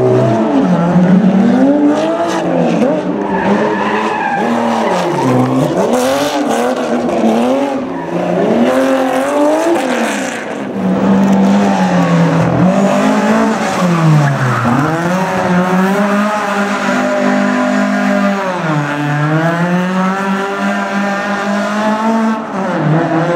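Rally car engine revving hard and dropping again and again, its pitch swinging up and down every second or so and later held high with a few dips, with tyres squealing as the car slides sideways in a drift.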